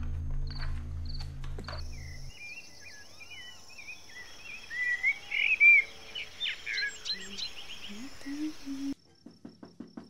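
Birds chirping over a steady high insect buzz, after a low music drone stops a couple of seconds in. Near the end the outdoor sound cuts away and a quick run of faint knocks is struck on a wooden door.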